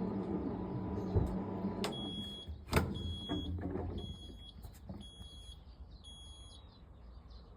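Fisher & Paykel Pride MW511 washing machine coming to the end of its cycle: its low running hum dies away, two clicks sound, then five short high beeps about a second apart, the end-of-cycle signal.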